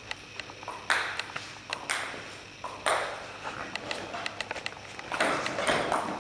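Table tennis ball clicking back and forth off the bats and table during a rally, each click echoing briefly in a large hall. A louder scuffing noise joins near the end.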